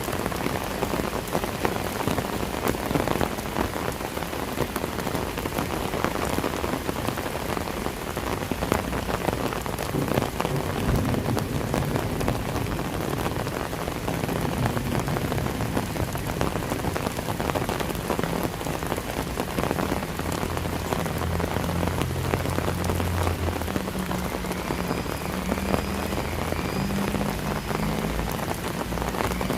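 Steady rain falling and pattering, dense with fine drop ticks. A low steady hum joins in from about halfway through, with a faint wavering high tone near the end.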